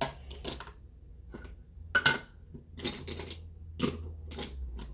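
Makeup items clicking and clattering against each other as they are rummaged through to pick out an eyeliner pencil: a string of short, irregular light knocks.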